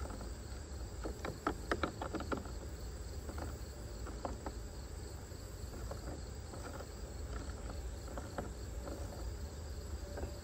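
A 1/4-inch drive hand ratchet clicking in short runs of strokes as the sponson bolts on a personal watercraft hull are loosened by hand, over a steady chorus of chirping insects.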